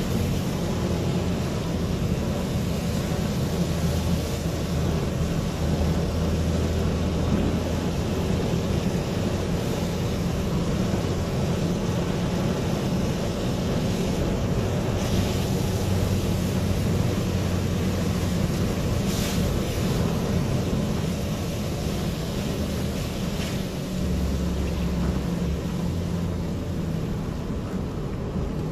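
Car cabin noise while driving on a wet road: a steady low engine drone with tyre and road hiss. A few short hisses come through about halfway and later on.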